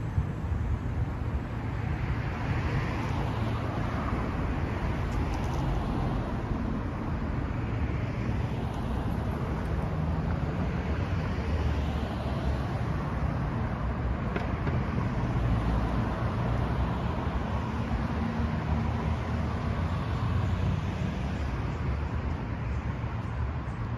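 Road traffic on a multi-lane city street: a steady hum of car engines and tyres that swells now and then as vehicles pass.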